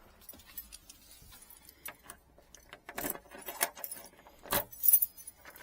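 A bunch of keys jangling, with sharp metallic clicks and knocks, loudest about three seconds in and again around four and a half to five seconds in.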